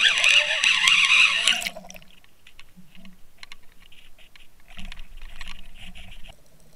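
Loud rushing of water over an underwater fishing camera's housing as the line is reeled up with a hooked triggerfish, stopping suddenly about two seconds in. Scattered light clicks follow, then a second or so of splashing near the end as the fish reaches the surface and is grabbed by hand.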